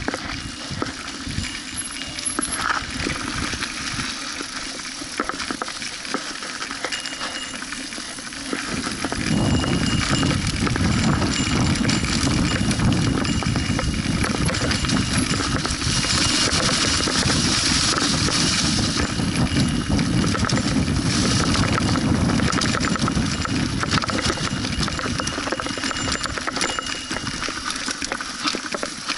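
Mountain bike riding noise heard from a camera on the rider: tyres running over a leaf-strewn dirt trail, with the bike rattling and clicking over bumps. About nine seconds in, a heavier low rumble sets in and continues.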